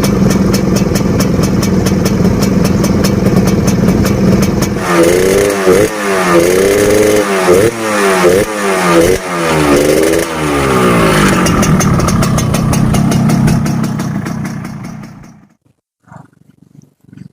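Yamaha RX-King two-stroke single-cylinder motorcycle running through a hollowed-out exhaust tuned for a crisp, snarling note: it idles, is revved in a series of quick blips, settles back to idle and cuts out near the end.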